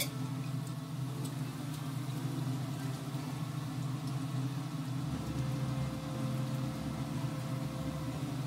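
Guinness stout poured from a bottle into a hot cast-iron skillet of simmering red wine, the liquid bubbling, over a steady low hum.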